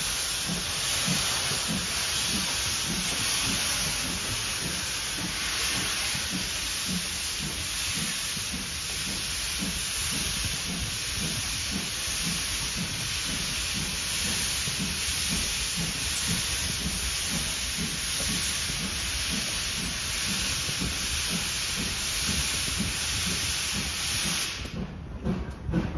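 Steam from the GWR Manor-class 4-6-0 Odney Manor hissing loudly past the carriages as the train runs, with a regular low beat underneath. The hiss cuts off suddenly near the end.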